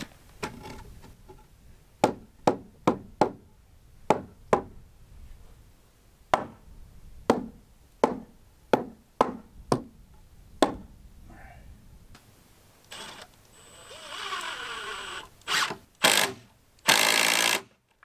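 A run of about sixteen sharp hammer strikes on the timber frame, unevenly spaced over some eight seconds, each with a short ring. Near the end come a rough noise with a falling whine, then three loud harsh bursts, the last about a second long.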